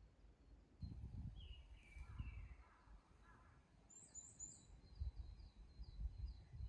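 Faint birdsong in a forest: a few falling chirps, then a high note repeated quickly, about three or four times a second, through the second half. An uneven low rumble comes and goes underneath.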